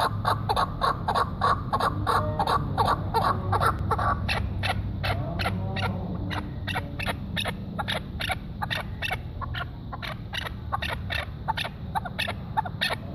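Chukar partridge calling: a long, fast series of sharp chuk notes, about four a second, growing somewhat weaker about halfway through.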